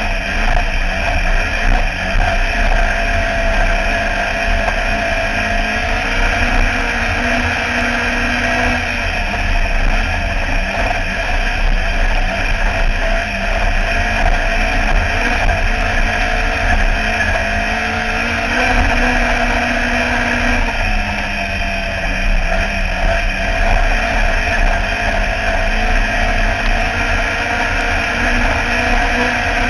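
Autograss racing car's engine running hard at high revs, heard from inside the cabin right beside the engine, its pitch dipping and coming back up a couple of times. A constant low rumble runs underneath.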